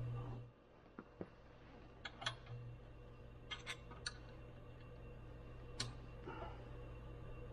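Scattered light clicks and clinks of small metal tools and parts being handled, about eight in all with short gaps between them. A low hum cuts off about half a second in.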